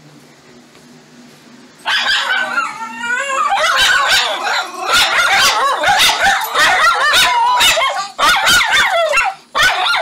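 Several miniature schnauzers in their crates barking, yipping and howling together, starting suddenly about two seconds in and going on without a break: an excited greeting as their owner comes into the room.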